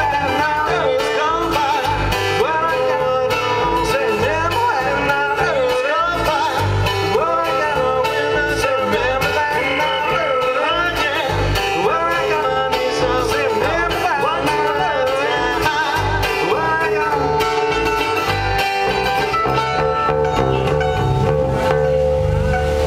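A live bluegrass-style band playing: mandolin, acoustic guitar and electric bass, with a man singing into the microphone. The music holds a steady level.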